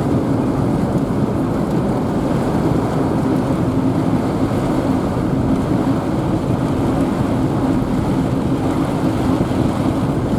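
Steady, loud rush of storm wind buffeting the microphone, with a low vehicle hum beneath it.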